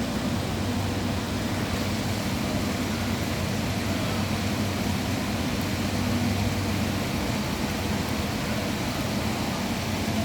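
Heavy rain pouring down in a steady, loud hiss, heard from a window, with a low steady hum underneath.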